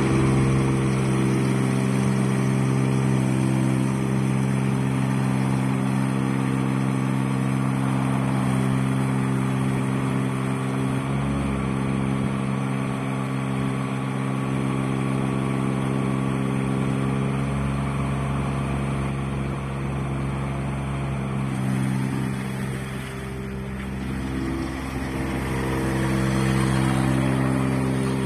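Skid steer loader engine running steadily. Its level dips slightly a little past the middle and rises again near the end.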